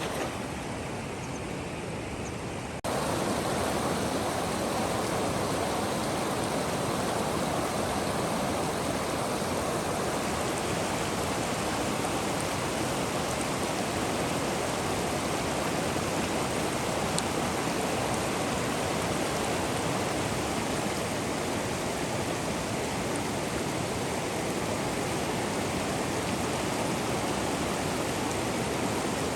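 Steady rushing of a river's flowing water. It gets louder at a cut about three seconds in, then carries on unchanged.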